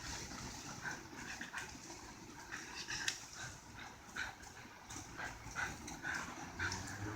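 Pit bulls chewing and shaking mulberry tree branches: scattered crackling of leaves and twigs, with a few short high-pitched sounds.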